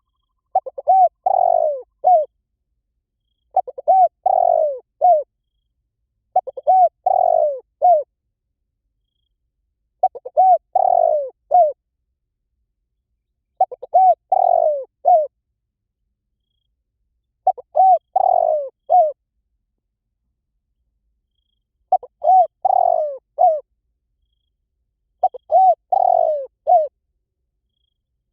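Spotted dove cooing: eight repeated phrases of several soft, low coos, each phrase about a second and a half long, coming every three to four seconds. The gaps between phrases are completely silent.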